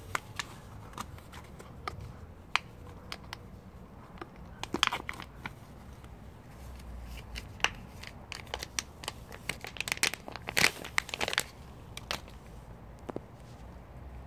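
Close crinkling and rustling with scattered sharp clicks, busiest about five seconds in and again from about ten to eleven and a half seconds in.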